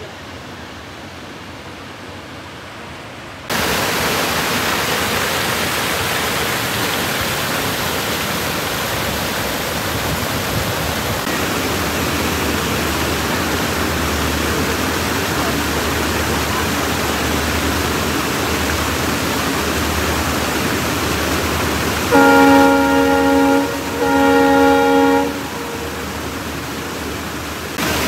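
Train horn sounding twice near the end, two long multi-tone blasts about a second and a half each, over a loud steady rushing noise that sets in a few seconds in, with a low rumble underneath from about a third of the way through.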